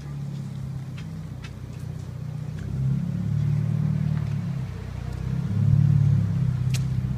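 A motor vehicle's engine running with a low, steady hum that swells twice, with a few faint clicks.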